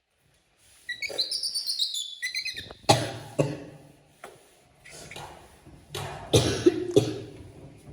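A baby monkey gives a run of high, gliding, squeaky calls, followed by louder harsh, cough-like bursts about three seconds in and again around six to seven seconds in.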